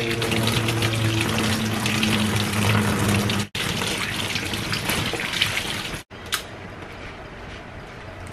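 Kitchen tap running, its stream splashing into a stainless steel sink as long beans are rinsed under it by hand. The sound cuts off abruptly about 3.5 s in, resumes, then cuts again about 6 s in and comes back quieter.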